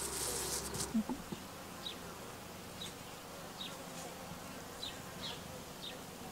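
Honey bees buzzing around the hives: a steady low hum, with faint short high chirps now and then.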